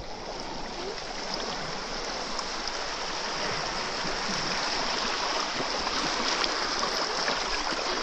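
Small sea waves lapping and washing over sand and rocks at the water's edge, heard close up: a steady rush of water that grows slowly louder.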